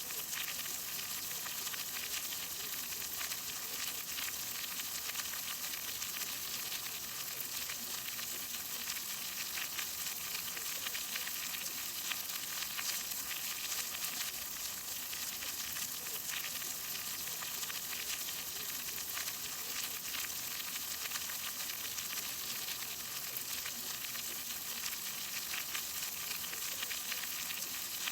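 Steady rain falling, an even hiss made of many small drop impacts.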